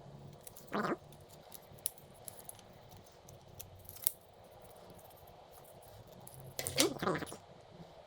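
Laptop parts being handled during reassembly: scattered small clicks of plastic and metal, a short scrape about a second in and a louder scrape about seven seconds in.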